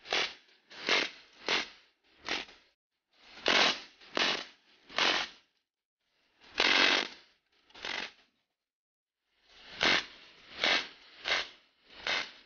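GSMG pneumatic fully automatic BB machine gun firing steel BBs in short bursts: about a dozen bursts, each well under a second, with brief pauses between them and a slightly longer burst about two thirds through.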